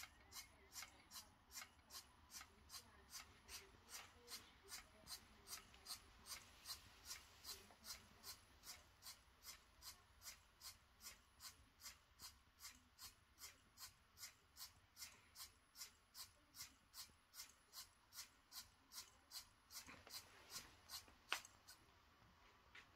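Small LEGO electric motor mechanism running with a faint high whine and an even, rhythmic clicking of about two clicks a second. A louder sharp click comes near the end, just before it stops.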